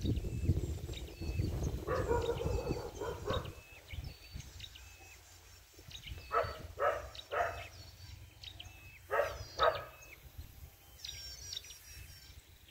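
Dogs barking: three short barks about half a second apart around six seconds in, then two more about three seconds later, with small birds chirping throughout. A low rumble fills the first few seconds.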